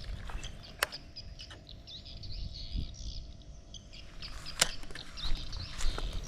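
Birds chirping over a steady low rumble, with two sharp clicks, one about a second in and one about four and a half seconds in.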